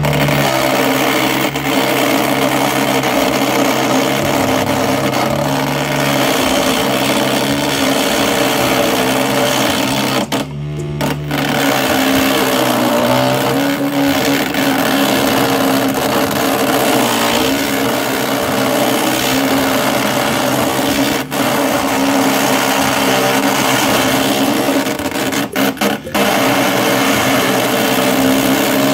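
Small electric motor of a hobby jeweler's lathe running steadily, with a hand-held turning tool scraping and cutting a spinning poplar dowel. The cutting hiss eases off briefly about ten seconds in and a few times near the end, leaving the motor's hum.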